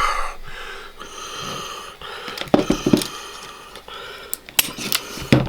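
Breathy sound at first, then a handful of sharp metallic clicks and handling knocks from a double-action revolver as its trigger is pulled through against a trigger-pull gauge, the hammer snapping down.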